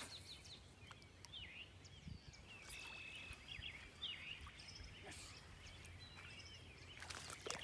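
Faint, scattered bird chirps and short whistles over a very quiet background, with a few soft clicks near the end.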